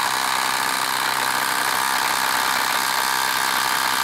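Ridgid Octane quarter-inch hex impact driver hammering steadily under heavy load as it drives a 5/8-inch by 8-inch galvanized lag bolt into a log round.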